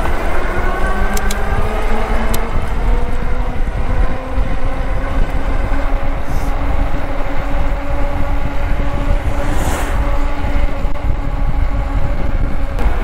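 Engwe EP-2 e-bike's 500 W hub motor whining under power as the bike accelerates, the whine rising in pitch over the first few seconds and then holding steady at speed, over heavy wind rumble on the microphone.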